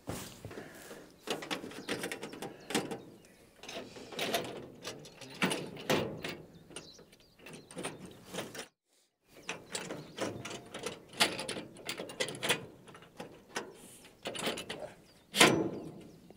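Metal solar-panel mounting rail and joiner being handled and slid into place on roof brackets: irregular clicks, knocks and sliding clatter, with a louder knock near the end. The sound cuts out briefly a little before halfway.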